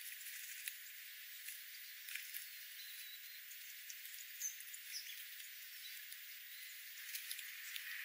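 Small ground-feeding songbirds foraging on seed-strewn ground: scattered faint ticks and scratches from pecking and hopping, over a steady high hiss, with a couple of brief high notes around the middle. The recording has no low end because everything below about 1.8 kHz is filtered out.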